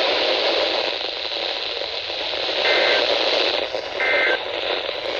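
Steady static hiss from a weak NOAA Weather Radio signal, broken twice, about three and four seconds in, by a short burst of two-tone SAME digital data. The bursts are short enough to be the end-of-message code that closes the weekly test.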